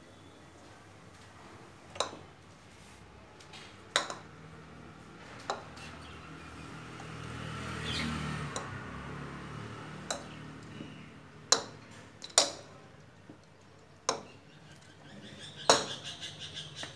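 A small plastic ball batted about by a cat, knocking sharply against a hard tiled floor in single clicks every second or few seconds. A low rushing sound swells and fades in the middle.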